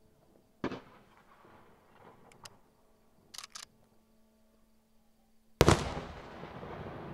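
Aerial firework shells going off at a distance: a short boom about half a second in and a few faint sharp clicks, then a loud shell burst near the end whose echo fades away slowly.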